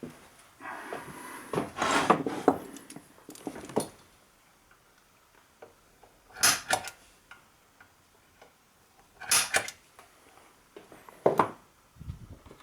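Metal tools and parts being handled at a workbench: a cluster of clinks, knocks and rummaging in the first few seconds, then a few single sharp clinks spaced a couple of seconds apart.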